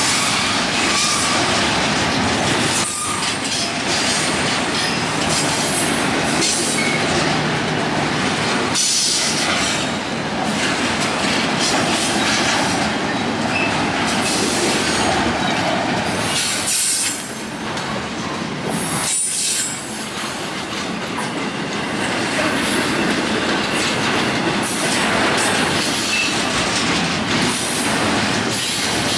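Empty coal train's freight cars rolling past close by, a steady rumble and rattle of wheels on rail with high-pitched wheel squeal coming and going.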